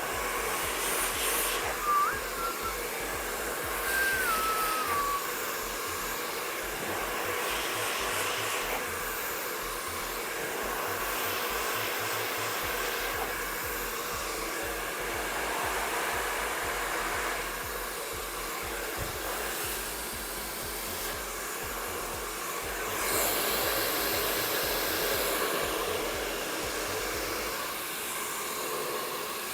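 MQ Pro Digital 2600-watt professional hair dryer blowing steadily during a brushed blow-dry, its rush of air swelling and easing as it moves. A few short whistle-like tones sound in the first few seconds, and the air sounds brighter and louder for a couple of seconds about 23 seconds in.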